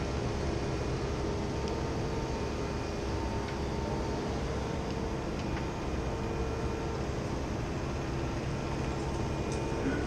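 Steady city-square background noise: a low rumble with a faint steady hum and a few faint ticks.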